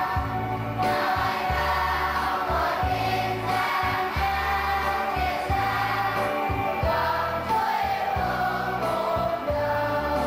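Children's choir singing a hymn together over low instrumental accompaniment, in long sustained notes.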